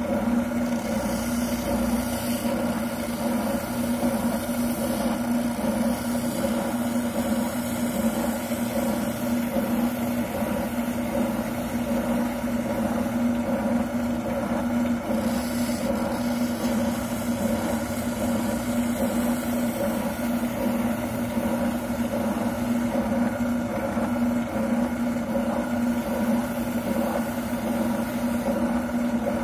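Wilton oscillating sander running with a steady hum, as a shotgun buttplate is held against it and sanded down.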